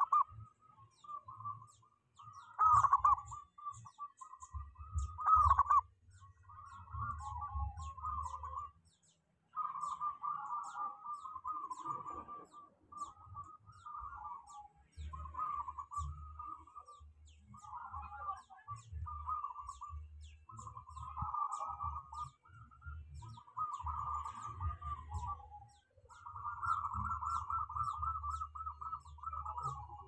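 Zebra dove (perkutut) singing: repeated phrases of quick, fluttering cooing notes, each one to two seconds long with short pauses between them.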